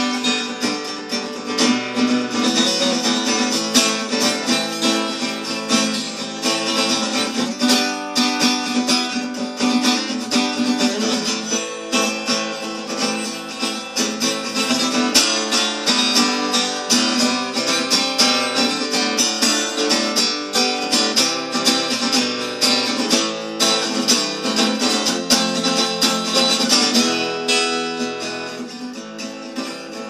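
Acoustic guitar strummed in a folk song's instrumental break, a steady run of chords that softens over the last few seconds.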